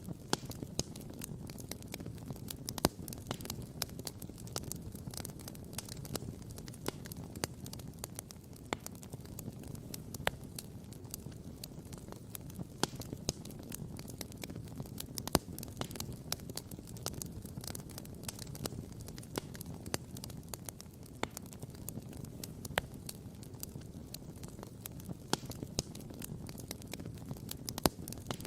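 Wood campfire crackling and popping, with frequent sharp pops scattered at irregular intervals over a steady low rush.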